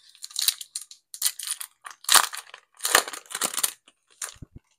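Yu-Gi-Oh booster packs and cards being handled: a run of short papery swishes and crinkles, then a few soft taps near the end.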